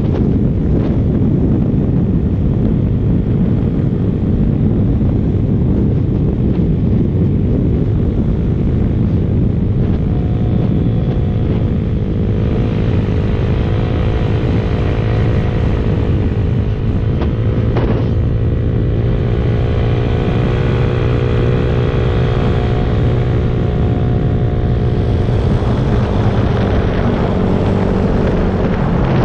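Small-displacement mini motorcycle engines running on the move under heavy wind buffeting on the microphone. The engine note rises and falls with the throttle from about ten seconds in, with one sharp click a little past halfway.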